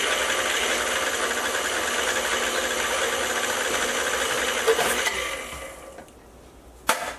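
Electric stand mixer running steadily as it blends flour, butter and sugar. It is switched off about five seconds in and winds down to quiet. A sharp click comes near the end.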